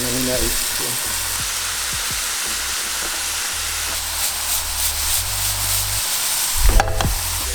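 Stir-fry of tempeh and vegetables sizzling steadily in a hot pan as it is stirred, with scattered clicks and scrapes from the utensil against the pan. Background music with a low bass line runs underneath.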